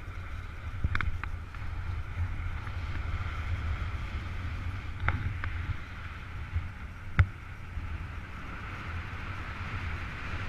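Airflow rushing over the microphone of a paraglider pilot's harness-mounted camera in flight, a steady low rush. A few brief sharp knocks, the loudest about seven seconds in.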